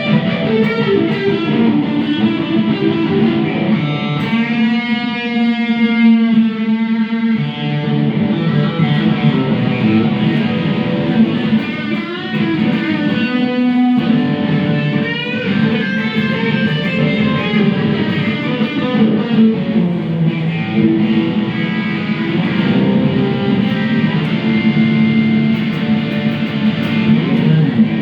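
Electric guitar played through a Boss Katana amp feeding a Fender Acoustasonic amp: a continuous passage of sustained notes and chords.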